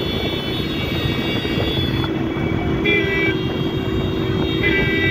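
A Honda motorcycle running at speed, with a steady rush of wind and road noise. A vehicle horn toots briefly twice: about three seconds in and again near the end.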